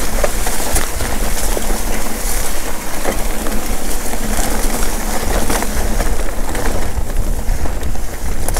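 Mountain bike rolling down a rough dirt trail: wind rumbling on the microphone and tyre noise, with frequent small rattles and knocks from the bike over bumps.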